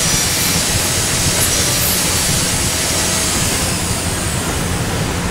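High-speed air-turbine dental handpiece running with an inverted cone bur, smoothing the base material on the floor of a Class I cavity in a typodont molar: a steady, loud hissing whine that winds down near the end as the handpiece is lifted off the tooth.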